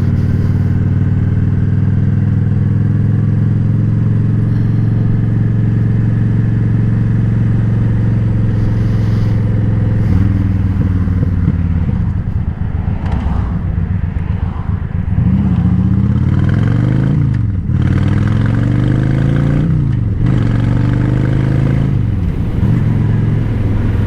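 Honda Shadow Spirit 750 V-twin running through a Cobra Streetrod Slashdown exhaust, at a steady cruise for the first ten seconds or so. From about halfway the revs rise and fall again and again as the throttle is rolled on and off.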